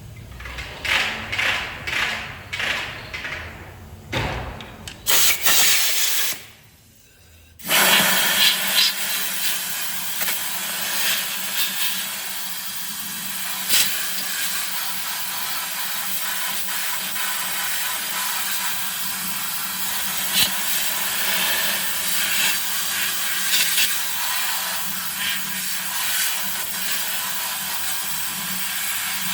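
Irregular clatter and knocks, then a brief drop to near silence, then a steady loud hiss with a low hum underneath and an occasional sharp click.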